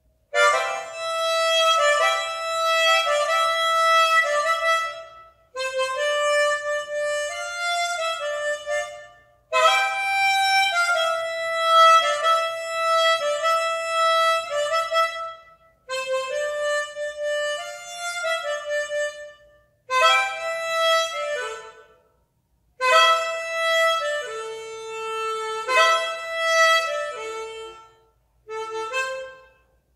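Solo harmonica playing a slow, unaccompanied melody in phrases of a few seconds each, with short breath gaps between them.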